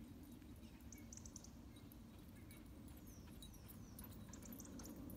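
Near silence: faint outdoor ambience with a low rumble and a few faint, high, short chirps, some gliding downward.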